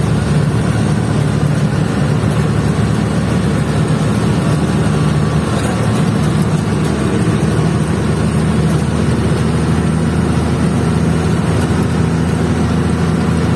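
Truck engine running steadily as the truck drives along at a constant pace, heard from inside the cab with road noise underneath.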